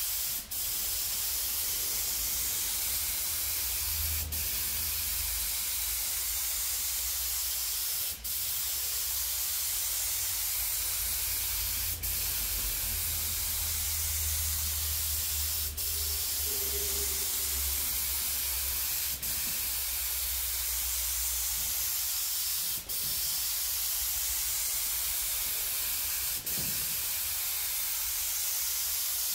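Compressed-air gravity-feed spray gun spraying clear coat onto a car panel: a steady hiss of air and atomised paint. It breaks off briefly with a click about every four seconds.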